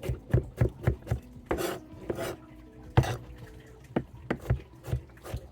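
A block of cheese being grated by hand on a metal cheese grater: a run of short rasping strokes, roughly three a second.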